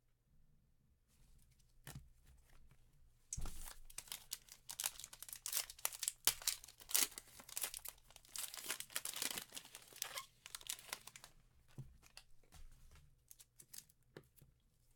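Plastic card-pack or box wrapping being torn open and crinkled, a dense crackling that starts sharply a few seconds in and dies down near the end.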